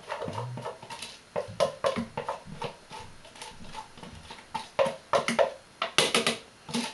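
Irregular taps and knocks from chopped parsley being scraped and knocked out of a plastic bowl into a Thermomix TM31 mixing bowl, loudest near the end.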